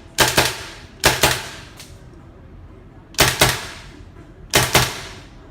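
Tippmann M4 gas-blowback airsoft rifle firing single shots. The sharp cracks come in quick pairs, each pair about a fifth of a second apart, four pairs in all with pauses of a second or more between them.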